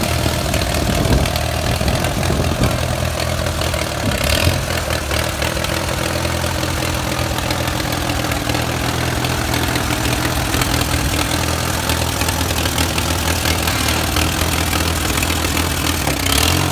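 Allis-Chalmers B tractor's four-cylinder engine running steadily as the tractor is driven slowly.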